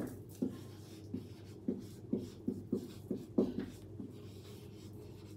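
Marker pen writing on a whiteboard: about ten short, irregularly spaced strokes and taps as the letters are drawn.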